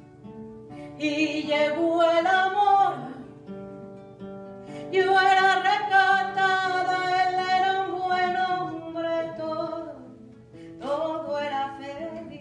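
A woman singing to her own acoustic guitar: three long sung phrases, the longest in the middle, over plucked guitar notes that carry on through the pauses.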